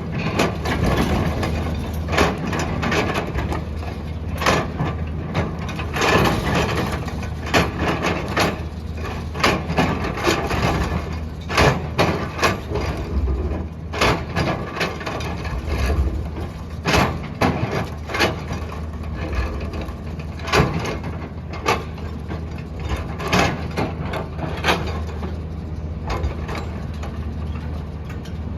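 A backhoe loader's diesel engine running steadily as it digs and loads mud. Frequent sharp clanks and knocks come at irregular intervals, typical of a bucket and its linkage at work.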